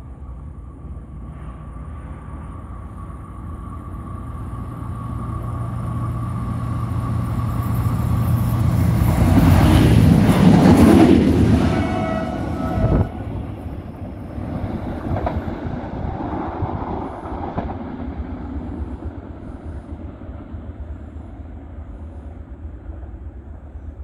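A Trenitalia regional train approaching and passing close by: its rumble builds steadily, is loudest as it goes past about ten seconds in, drops off sharply around thirteen seconds, then fades as it moves away.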